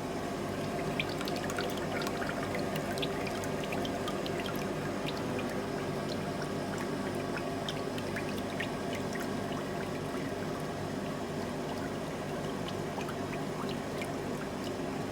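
Bright-orange hot steel fire striker quenched in quenching oil: a liquid sizzle with many small crackles as the scale cracks off, thinning out after about nine seconds, over a steady background hum.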